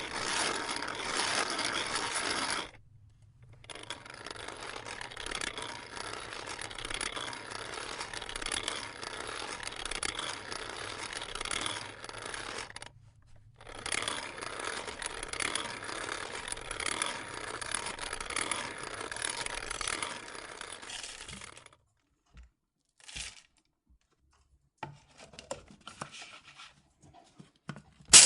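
Coffee beans rattling and crunching in three long stretches with short breaks, then a few scattered clicks near the end.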